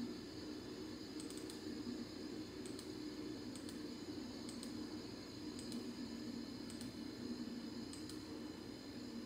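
Light clicks from a computer keyboard and mouse, roughly one a second and some in quick pairs, over a steady low hum.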